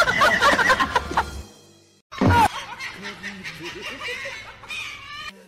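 People laughing over background music, with a short break about two seconds in, then a sudden loud burst and more laughter.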